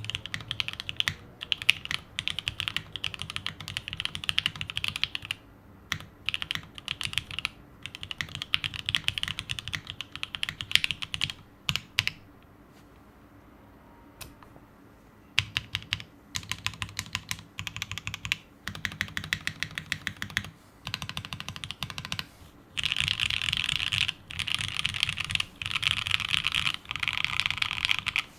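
Plateless 7V by gok custom tenkeyless mechanical keyboard with lubed and filmed H1 switches and lubed Staebies stabilizers, typed on in fast runs of keystrokes. About twelve seconds in the typing stops for roughly three seconds, with only a few single key presses, then resumes.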